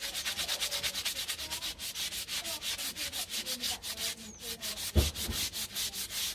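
Emery paper rubbed rapidly back and forth along an aluminium tube, about five strokes a second, cleaning up the homemade reflector element of an antenna. A low thump about five seconds in.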